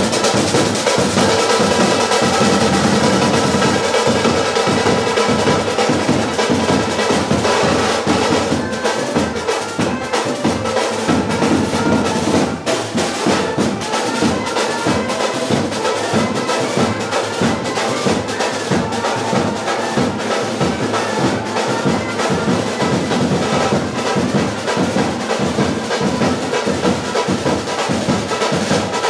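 Brass band music: trumpets and other brass playing over snare and bass drums with a fast, steady beat and drum rolls.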